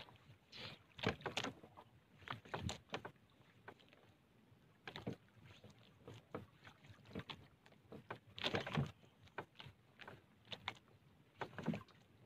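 Scattered knocks, rubs and scrapes from a fisherman working a handline over the side of a small bangka (outrigger boat), irregular and faint, with the loudest cluster about eight and a half seconds in.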